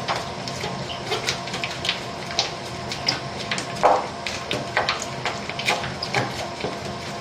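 Spiral dough mixer running, its motor humming steadily while the hook works a large batch of bread dough that slaps and pops against the stainless-steel bowl in irregular sharp snaps. The popping is the sign that the dough is elastic and reaching its point.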